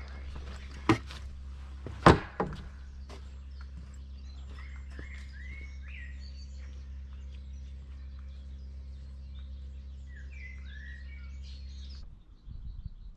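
Small birds chirping and singing in hedgerow trees, over a steady low rumble. Two sharp wooden knocks stand out about one and two seconds in, the loudest sounds here, from the wooden gate and footbridge as the hiker passes through.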